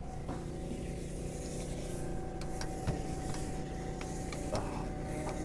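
A vehicle engine running steadily nearby: a low rumble with a steady hum tone over it, and a few short light clicks and knocks.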